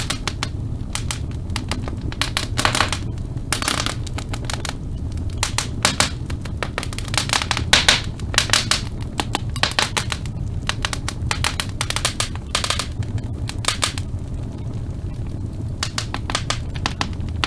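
Wood fire crackling in a fireplace: dense, irregular pops and snaps, bunched in quick clusters, over a steady low rumble of the burning.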